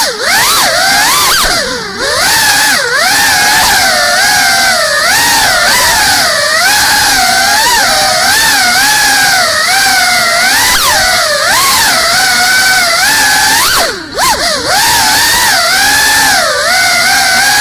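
Brushless motors and propellers of a GEPRC CineLog35 cinewhoop FPV drone whining in flight, heard from its onboard camera, the pitch rising and falling constantly with the throttle. The sound drops away briefly twice, about two seconds in and about fourteen seconds in, as the throttle is cut.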